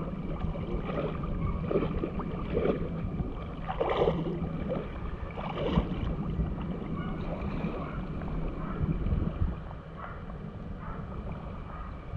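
Shallow sea water sloshing and splashing around a camera held at the surface, in irregular bursts over a steady low rumble of wind on the microphone.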